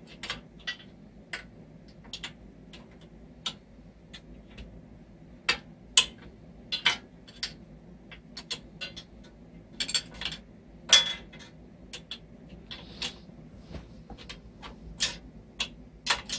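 Irregular sharp metal clicks and clinks of a 13 mm wrench working a bolt loose on a Coleman CT100U minibike, coming in ones and short clusters, the loudest about six and eleven seconds in.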